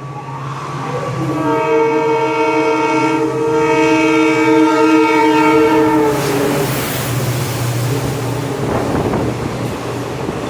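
Electric train's horn sounding one long blast of about five seconds, its pitch dropping slightly at the end as the train passes, then the noise of the train running by, with a steady low hum underneath.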